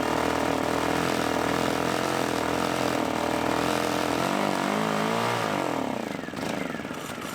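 The Lifan ESI860i-CA's 40cc generator engine runs steadily, then about four seconds in it falters, its pitch sagging and wobbling, and winds down to a stop. It stalls with the choke fully open.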